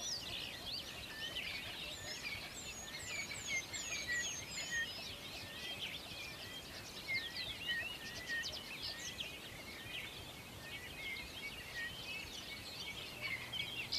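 Small birds chirping, with many short high calls overlapping and a run of quick descending notes a few seconds in, over a faint steady hiss.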